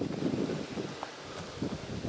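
Wind gusting against the microphone in an uneven low rumble, with birch leaves rustling.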